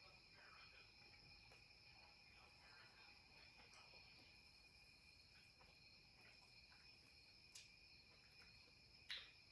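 Near silence: a faint steady high-pitched hiss or whine in two bands, with scattered faint small ticks and one sharper click near the end.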